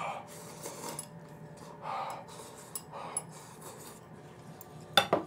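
Chopsticks scraping and clicking against a ceramic bowl as noodles are shoveled from the bowl held at the mouth, with soft eating noises. Two sharp clinks come near the end.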